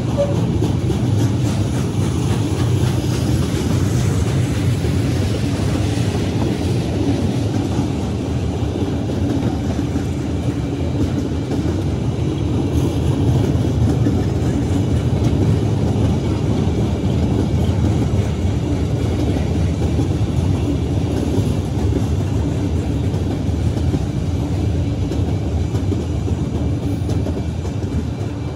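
Freight cars rolling past on the rails: a steady, low rumble of steel wheels on track.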